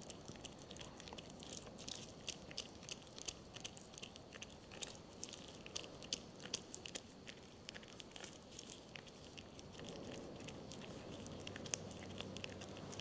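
Toyota Hilux front wheel bearing being hand-packed: the tapered roller bearing pushed into grease on a palm, giving faint, irregular squishy clicks and crackles as grease is forced through the rollers. A faint steady hum comes in about ten seconds in.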